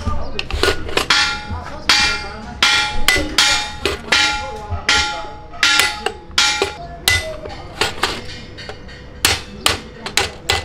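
Hand hammer striking steel on a heavy truck clutch disc's hub, about twenty sharp metallic blows at an uneven pace of roughly two a second, each ringing briefly.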